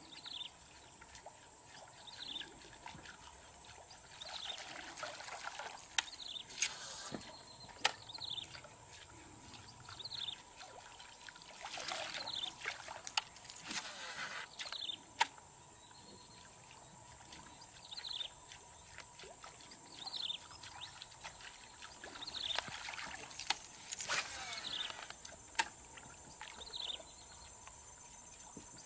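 Topwater lure fishing from a boat: a baitcasting rod cast with the line running out in brief rushes, and water trickling and splashing as the lure is worked. A short falling whistle repeats about every two seconds, with scattered sharp clicks.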